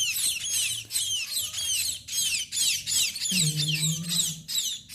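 Small caged birds chirping rapidly and without pause, many high, downward-sliding chirps a second. A short low vocal sound comes about three and a half seconds in.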